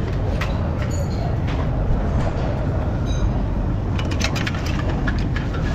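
Light metallic clinks and clicks, a couple ringing briefly, as a sheet-metal brake dust shield is handled and fitted over a new front wheel hub, with a quick flurry of clicks about four seconds in. A steady low rumble runs underneath.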